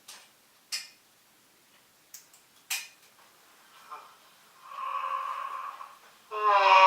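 A person yawning: a few short, sharp breaths, then a drawn-out voiced yawn that swells loud near the end and slides down in pitch.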